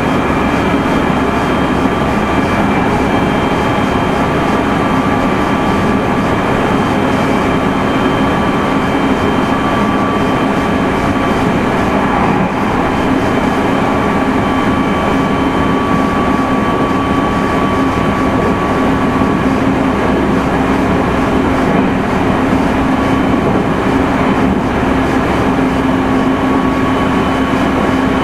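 Meitetsu 3100 series electric train running at a steady speed, heard from inside the car: a continuous rumble of wheels on rail with a steady whine of a few notes from the traction motors and gearing.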